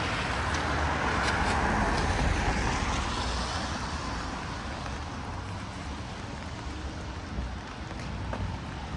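A car passing on a wet street, its tyres hissing on the wet road, loudest over the first three seconds and then fading, over a steady wash of rain and traffic noise.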